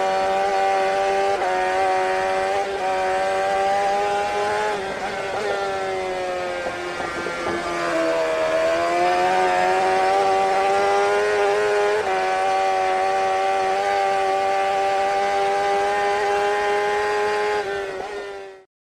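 An engine held at high revs at a nearly steady pitch, sagging and climbing back around eight seconds in, then cutting off suddenly near the end.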